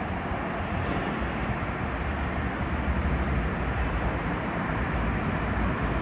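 Steady low rumbling background noise, with a couple of faint ticks about two and three seconds in.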